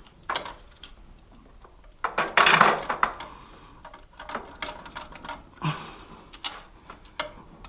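Metal clinks and clatter of tools and bike parts being handled and set down, with the loudest burst of rattling about two seconds in.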